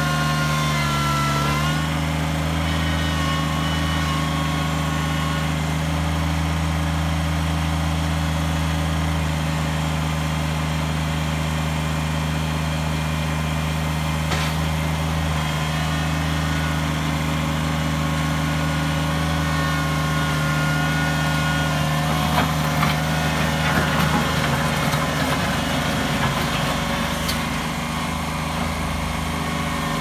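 Kubota BX25's three-cylinder diesel engine running steadily while the front loader works a gravel pile, its pitch dipping briefly near the start. About three-quarters of the way through comes a stretch of gravel crunching and rattling over the engine.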